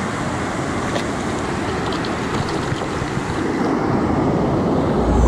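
Shallow surf washing over the sand, with wind buffeting the microphone; the wash grows a little louder near the end.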